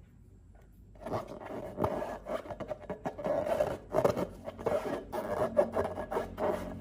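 Dense crackly rubbing and scraping with many small clicks, starting about a second in, as materials are handled and worked in slime making.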